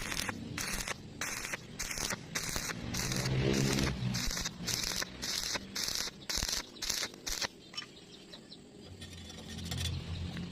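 Welding arc crackling in short repeated bursts, about two or three a second, as in stitch welding; the bursts stop about seven and a half seconds in.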